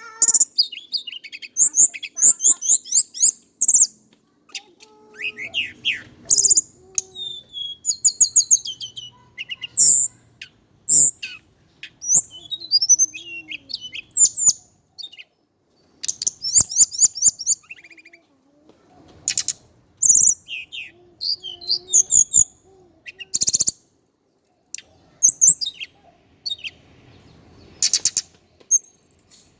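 Male hill blue flycatcher singing: bursts of fast, high twittering phrases with short pauses between them, broken by several sharp clicks.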